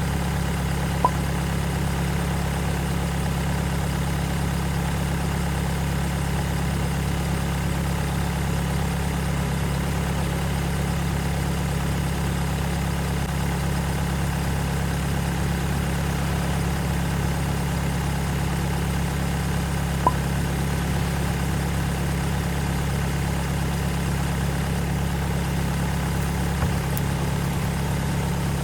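Isuzu Elf dump truck's engine idling steadily while its air conditioning is recharged with refrigerant. Two short clicks come about a second in and again about 20 seconds in.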